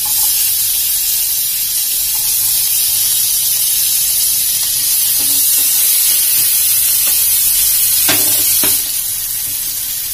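Chopped onion sizzling as it fries in hot butter and oil in a pan, stirred with a wooden spatula. The sizzle eases a little near the end, with two light knocks just before.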